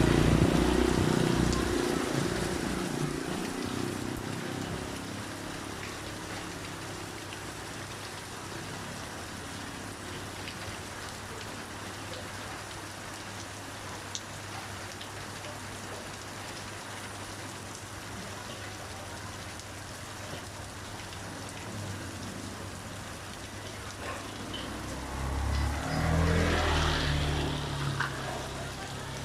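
Steady rain hiss. A vehicle's low rumble fades away over the first few seconds, and another vehicle swells past near the end and fades.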